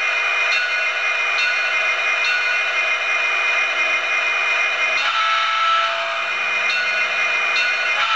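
Sound-equipped HO scale SD60M model diesel locomotive standing and playing its diesel engine sound through its small onboard speaker, a steady hum with a faint accent about once a second. The sound changes about five seconds in.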